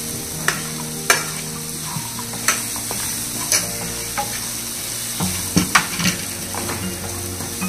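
Diced vegetables sizzling in oil in a nonstick frying pan while a wooden spatula stirs them. Sharp scrapes and taps of the spatula against the pan come every second or so over the steady sizzle.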